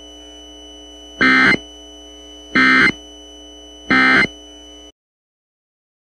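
Emergency Alert System end-of-message tones: three short bursts of digital SAME data code, with about a second between them, marking the end of the test, over a faint steady hum that cuts off suddenly about five seconds in.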